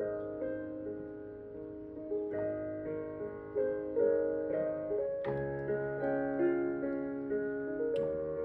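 Piano music: a slow melody of single notes and chords, each ringing on and fading, with a fuller low chord struck about five seconds in.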